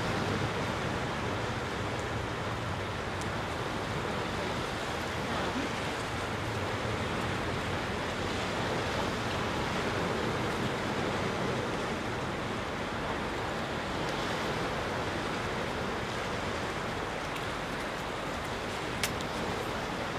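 Sea surf washing steadily over the rocky shore, a continuous even rush, with a faint short click about a second before the end.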